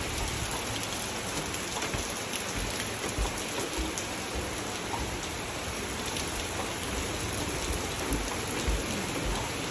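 Steady rain falling, a constant hiss dotted with the small ticks of drops.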